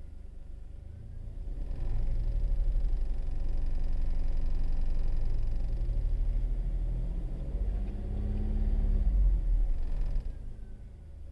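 Skoda Kushaq running, a low engine and drivetrain rumble that swells about two seconds in, with an engine note that rises and falls near the eight-to-nine-second mark before the level drops near the end. This is the car's rattling noise in the 1000–2000 rpm range, as the owner reports it.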